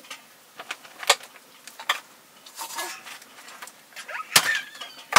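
Heavy knife chopping pork on a wooden board: a few sharp chops over the few seconds, the loudest near the end, with lighter knocks between them.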